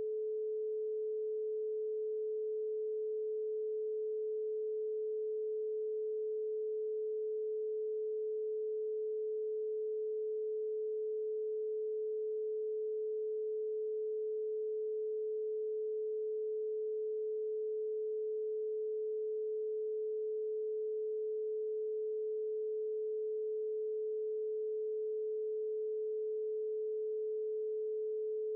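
A single electronically generated sine tone held at one steady pitch a little above 400 Hz, played as a brainwave-entrainment frequency tone.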